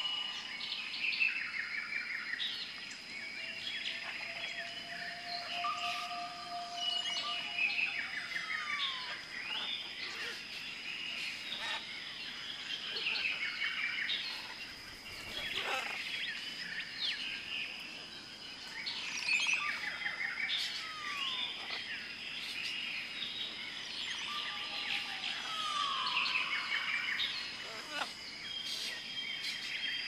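Tropical forest ambience: many birds calling at once, their chirps, whistles and falling notes overlapping over a steady high-pitched tone.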